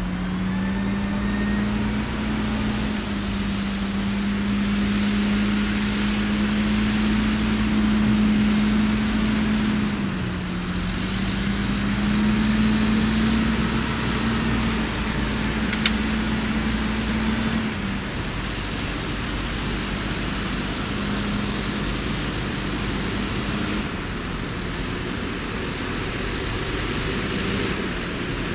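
Fendt 724 Vario tractor's six-cylinder diesel engine running under load while pulling a six-furrow reversible plough through stubble. Its steady note dips in pitch about ten seconds in, then steps down again later.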